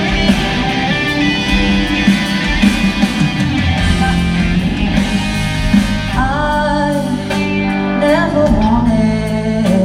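Live rock band playing a slow, guitar-led passage, with a lead vocal coming in about six seconds in, sliding between notes.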